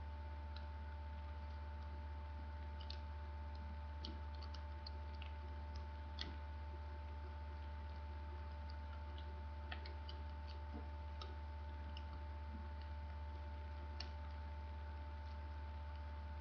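Sheet of origami paper crinkling and ticking as it is folded and creased by hand, in short irregular crackles over a steady low electrical hum.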